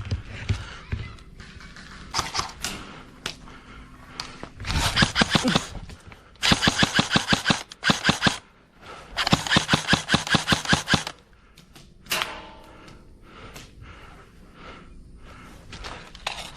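Airsoft gun firing three bursts of rapid full-auto shots, the middle and last bursts each about two seconds long.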